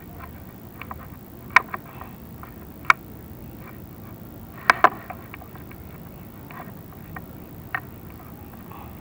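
Chimney inspection camera knocking against the clay flue tiles as it is lowered down the flue: scattered sharp clicks and taps, the loudest two close together about five seconds in, over a steady low rumble.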